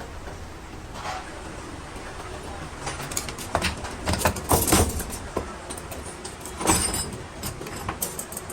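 Sharp metallic clanks and knocks, a cluster of them around the middle and one more a couple of seconds later, over a low steady rumble.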